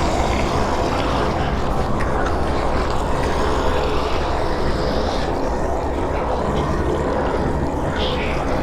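Horror sound effect of a devil or demon: a continuous, dense low rumble that holds steady throughout, with a faint brief higher sound near the end.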